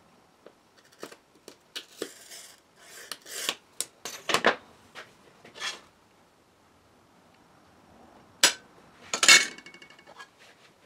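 A glass cutter scoring a pane of old salvaged window glass against a straightedge, scratchy strokes with scattered clicks, then a sharp crack and a ringing clink near the end as the scored strip snaps off.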